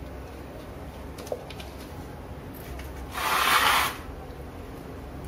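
Handling noise: a short scraping rustle about three seconds in as hands work the terracotta pot and the upturned plastic cup covering the cutting, with a faint click a little after a second in, over a steady low hum.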